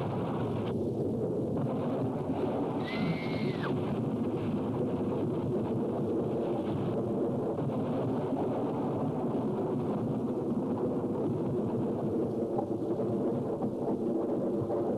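A steady mechanical rumble, like a vehicle running, with a brief high whistle about three seconds in.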